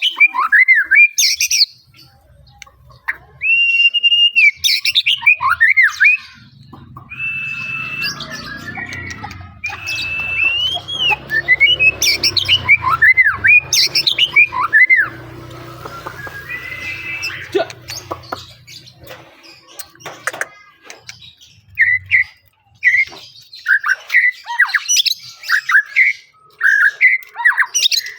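White-rumped shama (murai batu) singing a varied song of loud whistled phrases: long held notes, quick rising and falling slurs, and rapid runs of short chirps near the end.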